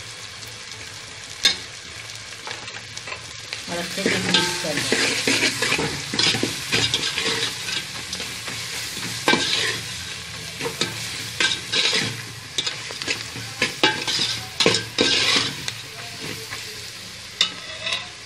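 Sliced onions frying in hot oil in a steel pot, sizzling steadily, as a ladle stirs in the powdered spices and salt, scraping and now and then knocking against the pot. The stirring gets louder about four seconds in.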